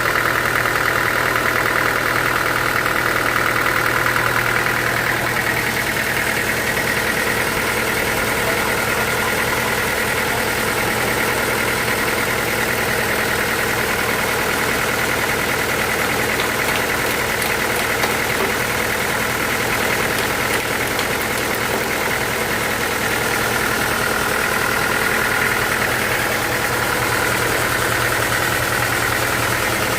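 Band sawmill machinery running steadily, a continuous machine hum with a higher ringing note that is stronger near the start and again near the end.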